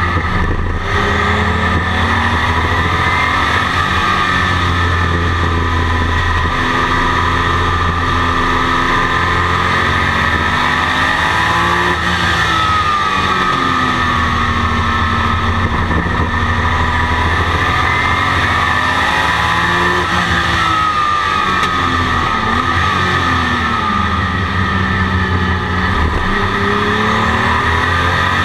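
In-cockpit sound of a 1982 Porsche 935 race car's turbocharged flat-six under way on track. The engine note repeatedly climbs as it accelerates through the gears and drops as it shifts down for corners, over a loud, constant cabin drone.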